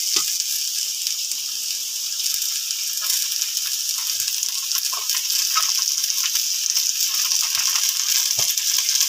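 Potato sticks and cauliflower sizzling steadily in hot oil in a steel kadai, with scattered clicks and knocks from vegetables being dropped in and the steel spatula touching the pan.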